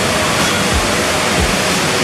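Steady rush of a large indoor waterfall, the Rain Vortex, with background music and a soft low beat over it.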